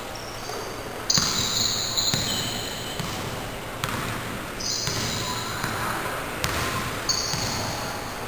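A basketball bouncing on an indoor court during a pickup game, a few irregular dribble and pass impacts, with short high squeaks of sneakers on the court floor three times.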